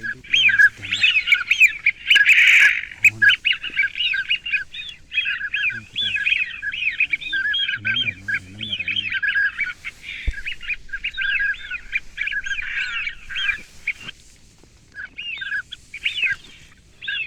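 Ducks calling continuously, many short overlapping calls, with a brief lull about fourteen seconds in.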